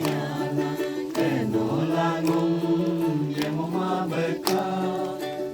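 Voices singing a gospel song, with long held notes that glide slowly in pitch.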